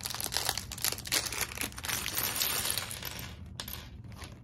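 Thin plastic Lego parts bag crinkling as it is opened and handled, with light clicks of small plastic pieces; it dies down about three and a half seconds in.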